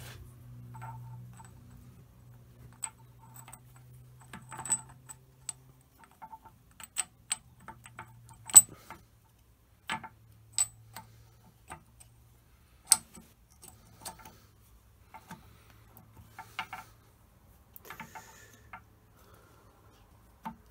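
Irregular sharp metallic clicks and clinks as steel gear parts of a lathe's feed reverse bevel-gear assembly are handled and knocked together while being fitted, with the loudest clink about eight seconds in.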